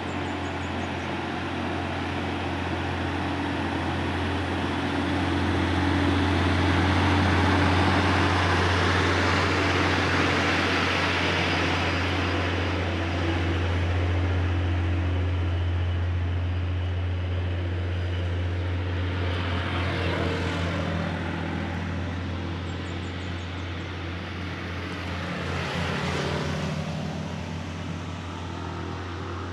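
Road traffic: motor vehicles passing over a steady low engine hum. The sound swells to its loudest about 7 seconds in and fades, and two more vehicles pass near 20 and 26 seconds.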